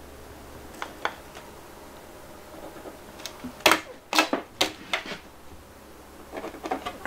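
Light clicks and taps from handling a tape measure against a white plastic fan shroud while measuring and marking it, with a few sharper clicks in quick succession through the middle.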